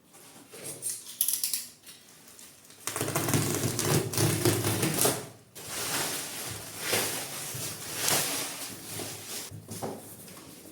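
Hands handling packaging and 3D-printer parts: irregular rustling, clicks and light knocks, busiest for a couple of seconds near the middle, then smaller rustles that taper off.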